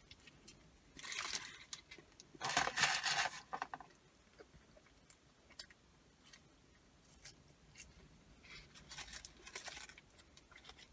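Paper burger wrapper crinkling in two bursts, about a second in and again around three seconds in, with faint chewing and small rustles in between and near the end.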